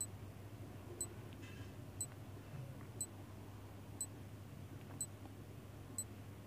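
Countdown timer's clock-tick sound effect: seven short, sharp ticks, one a second, over a faint low hum.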